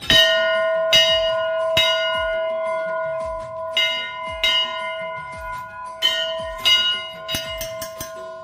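A temple bell is struck about ten times at uneven intervals, with a few quick strikes near the end, each ring lingering into the next.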